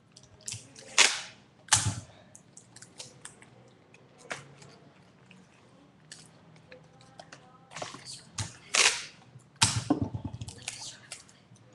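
Adhesive tape being pulled off the roll in several short rasping rips, with a couple of sharp knocks and paper handling between them.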